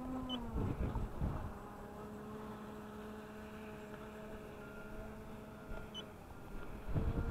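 Atomik Barbwire RC boat's electric motor whining steadily at a distance as the boat runs at speed on the water, its pitch dipping slightly just after the start. A few low bumps come near the start and again near the end.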